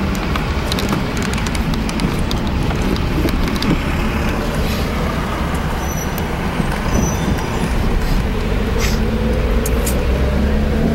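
A car driving, its engine and tyre noise heard from inside the cabin as a steady low rumble, with scattered small clicks.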